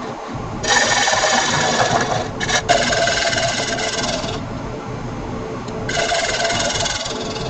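Wood lathe running, with a hissing, rasping noise of something pressed against the spinning piece in two stretches, the first about four seconds long and the second starting near the end; a couple of sharp clicks fall in the first stretch.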